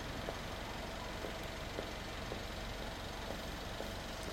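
Honda CB1300 Super Four's inline-four engine idling steadily through a Nojima FASARM full exhaust.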